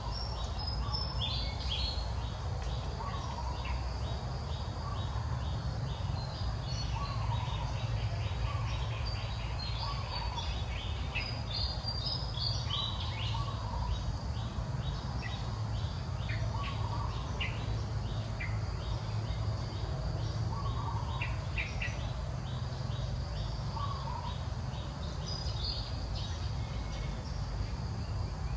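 Outdoor ambience of birds chirping and calling many times over a steady low rumble, with a short call near mid pitch repeating every couple of seconds.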